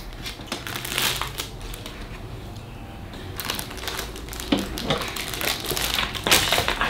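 Plastic snack wrappers and packaging crinkling in bursts as they are handled.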